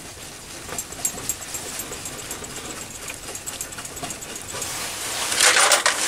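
Mechanical noise from the slides of a Chinese mini lathe being wound by hand, a steady whirr with light irregular ticks, and a louder rustling hiss near the end.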